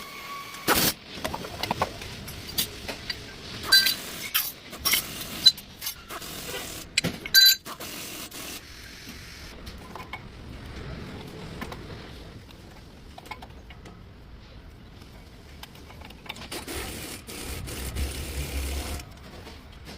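Metal tools and brake parts clinking and knocking, several strikes with a short metallic ring, thinning out about eight seconds in to a steady low hum with a brief low rumble near the end.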